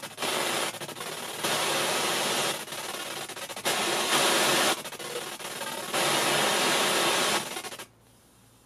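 FM radio static hissing from a Teufel Boomster speaker as it scans through the frequencies without finding a station. The hiss switches between louder and softer stretches about every second and cuts off abruptly about eight seconds in.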